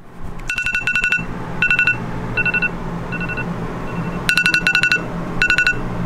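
Smartphone alarm going off: repeating bursts of quick two-tone electronic beeps, four to six beeps per burst with short pauses between bursts, over a low steady hum.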